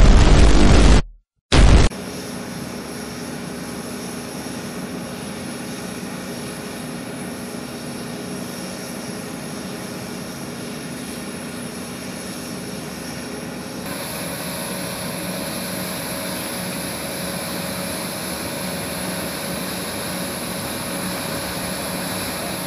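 A loud sound cuts off about a second in. Then comes steady aircraft engine noise with a constant hum, which grows a little louder and brighter about 14 seconds in.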